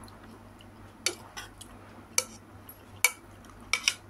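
Metal spoon clinking against a bowl while scooping up soup: a series of sharp, separate clinks starting about a second in.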